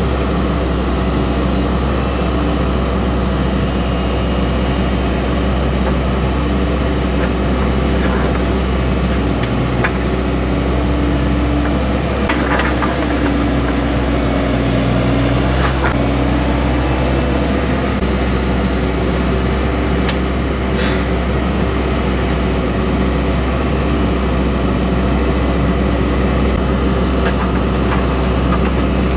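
Atlas 1505 M wheeled excavator's diesel engine running steadily under load, its note shifting in pitch around the middle as the boom works, with a few light knocks.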